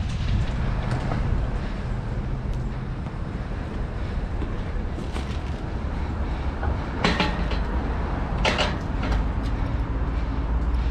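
Steady low rumble of a car on the move, engine and road noise heard from inside, with a few sharp rattling knocks about seven and eight and a half seconds in.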